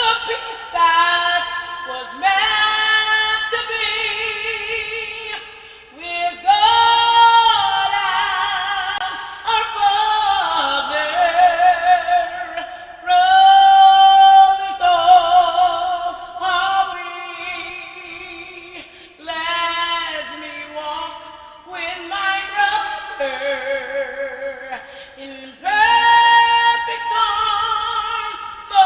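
High school choir singing in parts, with mixed voices holding and moving between notes in phrases with short breaths between them, the held notes wavering with vibrato.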